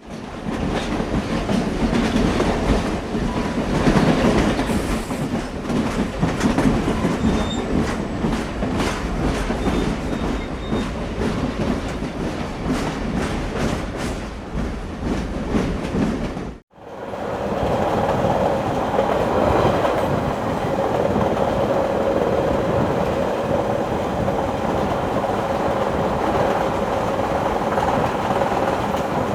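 Train running on rails: a steady rumble with rapid clickety-clack of the wheels over the rail joints. About 17 seconds in, the sound cuts out for an instant and returns as a smoother rumble with a steady hum.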